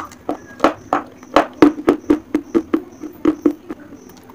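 White school chalk sticks being bitten and chewed close to the mouth: about a dozen sharp, crisp crunches, several a second, thinning out near the end.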